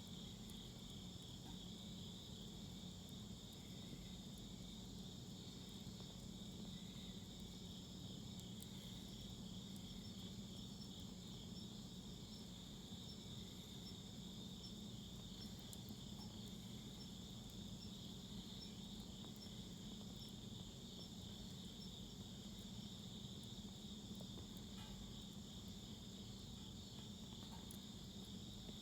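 A steady chorus of insects trilling, with a few faint pops from a wood fire burning in a fire pit.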